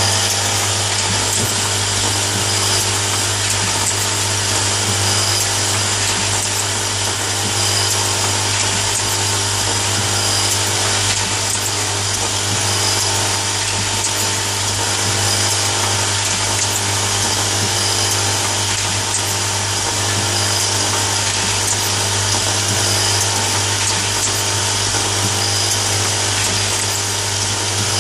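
Automatic nail polish filling and capping machine running: a steady motor hum with a strong low drone, and faint clicks every couple of seconds as the turntable indexes and the capping head works.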